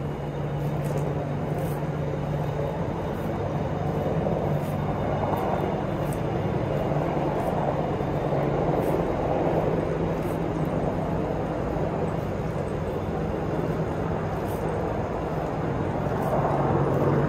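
Steady engine drone with a low hum under it, swelling about midway and again near the end.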